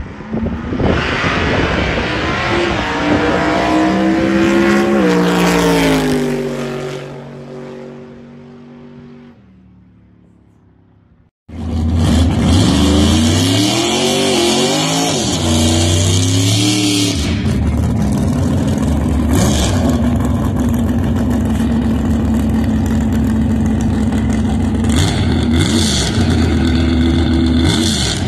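Small-block Chevy V8 drag truck launching and accelerating hard down the strip, its pitch climbing through the gear changes, then fading away into the distance. After a sudden cut, the engine is heard again climbing through the gears and then running steadily.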